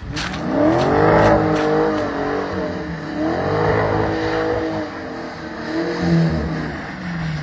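Car engine revving up and easing off about three times, its pitch rising and falling.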